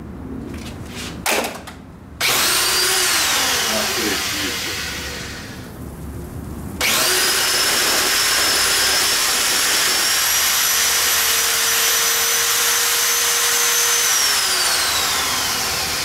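Mains-powered electric drill spinning a bundle of burning steel wool at full speed, with a high motor whine. It runs up briefly about two seconds in and slows. About seven seconds in it starts again at a steady speed, then winds down with a falling whine near the end.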